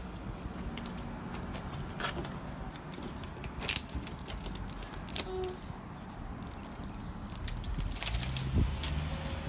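Plastic Zuru Smashers toy egg being handled and smashed open: a handful of sharp plastic clicks and knocks at irregular intervals over a low background rumble.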